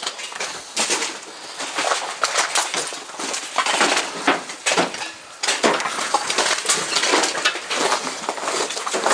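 Footsteps crunching and scraping over charred rubble and debris, an irregular run of crunches with no steady rhythm.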